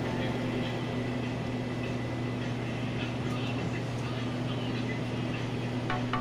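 Steady low machine hum with an even background rush, typical of workshop machinery such as cloth-cutting motors running.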